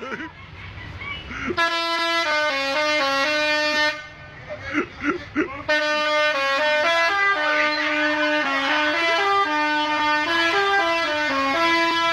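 Bus telolet horn, a multi-tone air horn, playing a tune of stepped notes. There is a short run of notes, a pause of about two seconds with a few short shouts, then a longer run of notes.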